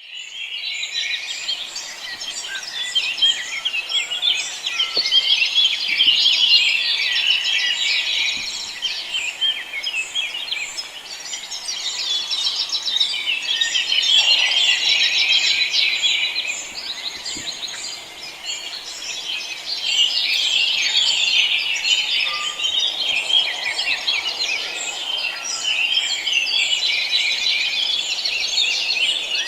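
Dawn chorus: many small birds singing and chirping at once in a dense, overlapping tangle of high trills and tweets that swells and ebbs every few seconds.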